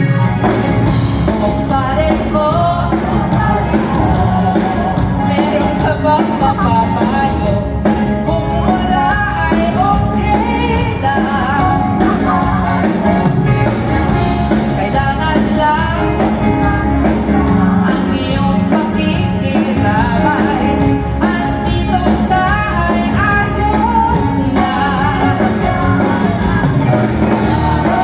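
A pop song: a singer's voice over a full band with a steady beat.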